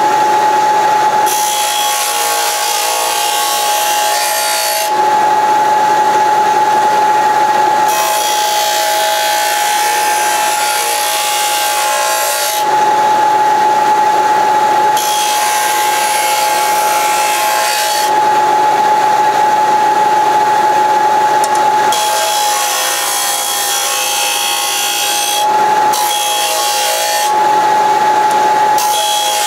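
Porter-Cable bench disc sander running with a steady whine while sheet-metal pieces are pressed against its spinning abrasive disc. The grinding swells and fades in repeated passes of a few seconds each as the edges are trued.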